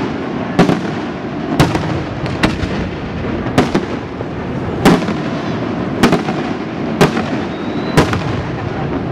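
Aerial firework shells bursting in quick succession, a sharp bang roughly once a second, with the display's continuous noise filling the gaps between bangs.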